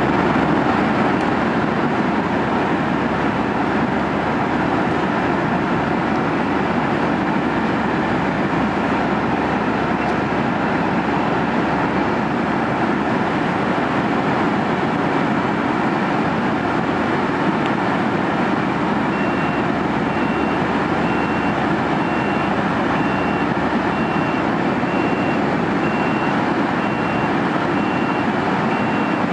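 Steady rushing noise of an airliner cabin in flight, from the jet engines and airflow at cruise. About two-thirds of the way in, a short high beep starts repeating a little faster than once a second, from the RKS-107 dosimeter-radiometer.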